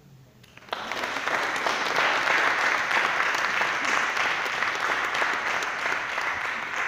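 Congregation applauding, starting suddenly about a second in and fading near the end.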